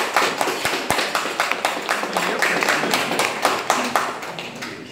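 Hand clapping: sharp, uneven claps several times a second, thinning out near the end.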